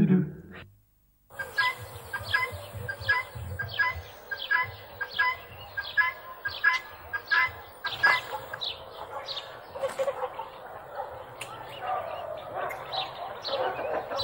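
Farmyard fowl calling over and over, about two harsh calls a second, starting suddenly after a moment's silence. The calls then loosen into an overlapping jumble of bird calls.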